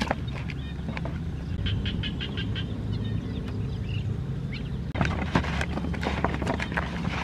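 Hands handling food in a plastic bowl, then from about five seconds in rubbing and squishing a whole fish with sliced vegetables in a wet marinade: close, irregular clicks, squelches and rustles. A steady low rumble runs underneath.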